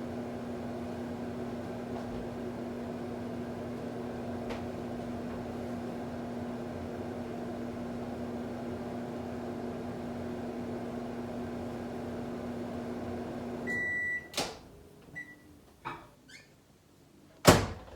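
Microwave oven running with a steady hum, heating a bowl of chocolate chips in a 30-second round. About 14 seconds in it stops and beeps, and a second short beep follows. Then come clicks and a sharp knock near the end, typical of the door being opened and the bowl taken out.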